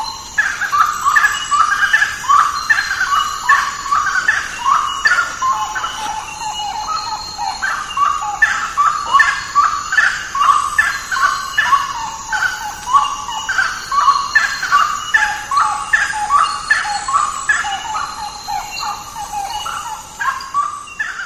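Gray-cowled wood rail (saracura-três-potes, Aramides cajanea) calling: a long, loud series of repeated calls, about two a second, easing off slightly near the end.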